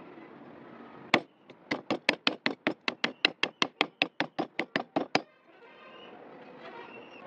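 A freshly restored meat cleaver chopping into a wooden stick: one sharp chop about a second in, then a quick run of about twenty light chops, roughly five a second, that stops suddenly.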